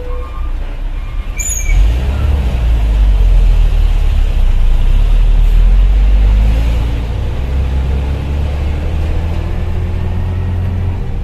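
Hino dump truck's diesel engine running under load, a deep rumble that swells about two seconds in, stays loud for several seconds, then settles while its pitch rises slowly near the end. A short high squeak comes just before the rumble swells.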